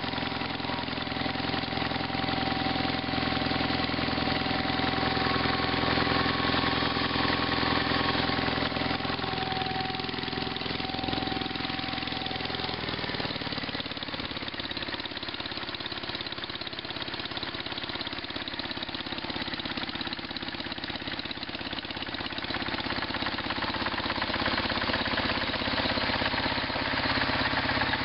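Sears GT/18 Hydrodrive garden tractor engine running steadily; about halfway through its note drops to a lower engine speed and runs on there.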